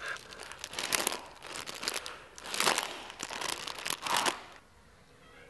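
Plastic crisp packet crinkling and rustling as it is tipped up and pressed to the mouth, with crunching of crisps, in several loud bursts that stop about four and a half seconds in.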